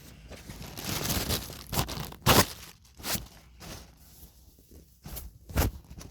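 Rummaging by hand through fidget toys and bedding: rustling and scraping, then several sharp knocks and clatters, the loudest about two seconds in.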